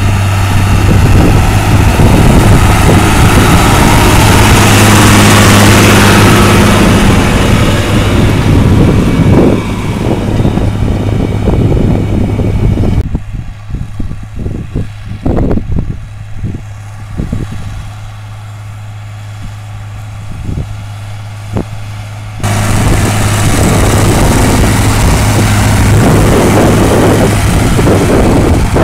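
John Deere 3140 tractor's six-cylinder diesel engine running hard under the heavy load of ploughing, with a steady low hum. About halfway through the sound drops quieter and thinner for several seconds, then comes back loud and close.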